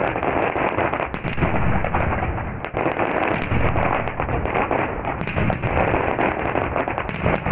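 Aerial fireworks display in full barrage: many shells bursting in quick succession, overlapping into a steady, continuous din with crackling.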